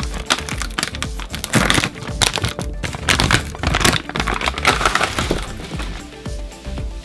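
Background music under repeated sharp crunches and cracks of crunchy snacks, coming in irregular clusters.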